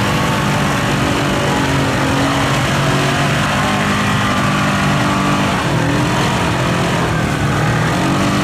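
ATV engine running hard under throttle as the quad churns through deep mud, its pitch stepping up and down a few times as the throttle changes.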